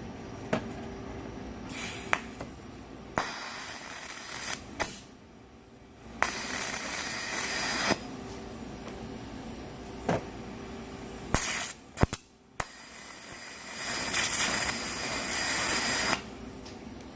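TIG welding arc from an AHP AlphaTIG 200X hissing and crackling in several separate stretches of a second or two, with sharp clicks between them, as the torch is brought to the steel on a low amperage setting.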